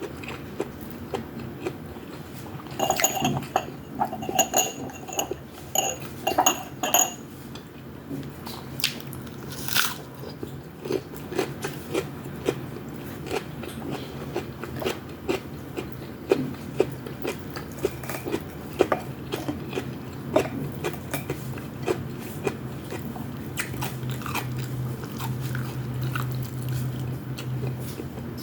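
Close-up eating sounds: chewing and biting, with many small clicks of utensils on a plate or bowl. A few seconds in comes a run of short ringing high clinks. A steady low hum runs underneath.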